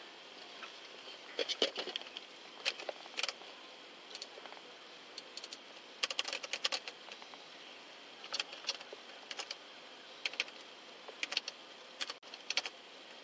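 Typing on a patrol car's laptop keyboard: short bursts of rapid keystrokes with pauses of a second or more between them.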